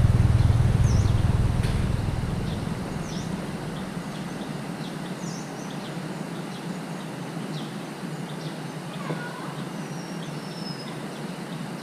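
Small birds chirping: short high chirps every second or so, with a lower falling call about nine seconds in and a drawn-out descending whistle near the end. A low engine rumble fades out over the first two or three seconds.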